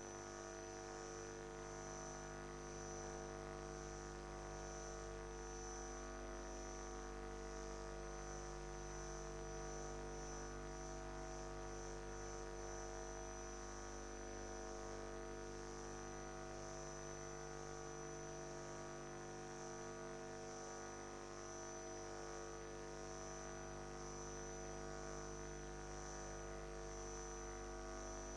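A faint, steady electrical hum and buzz made of several held tones, with a high whine that pulses evenly throughout.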